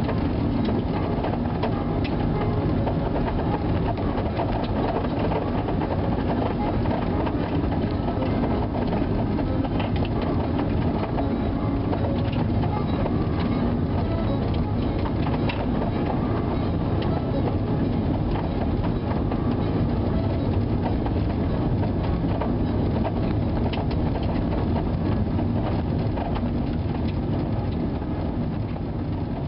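Steady rumble of a vehicle driving on a snow-packed highway, heard inside the cabin: tyre and road noise over the engine, with a few faint ticks. It eases slightly near the end.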